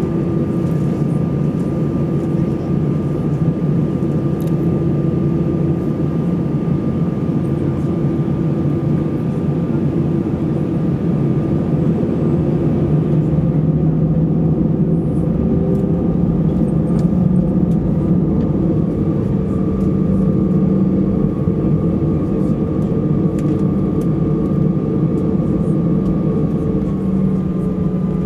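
Airbus A320 cabin noise in the climb, heard from a seat over the wing: a steady jet-engine drone and airflow rush with a low hum that rises slightly in pitch partway through.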